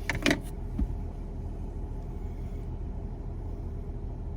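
Steady low rumble inside a car cabin, with a short cluster of sharp noises and then a low thump within the first second.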